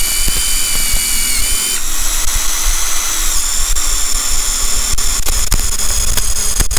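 Two cordless impact drivers, a Skil ID573901 and a Craftsman CMCF820, running at once, drilling 5/16 bits into a wooden beam. There is a high motor whine with a rapid rattle of impacts, and the whine shifts about two seconds in. The sound stops suddenly at the very end.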